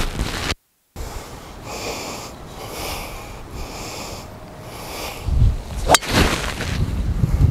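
A driver striking a golf ball off the tee: one sharp crack about six seconds in, with wind rumbling on the microphone around it. The sound drops out to silence for a moment just under a second in.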